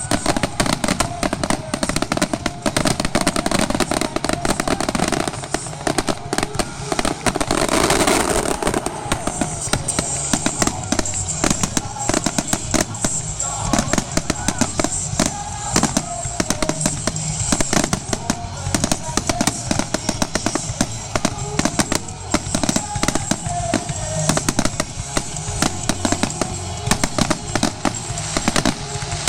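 Fireworks grand finale: a continuous, rapid barrage of shell bursts and crackles, with an especially loud crackling burst about eight seconds in.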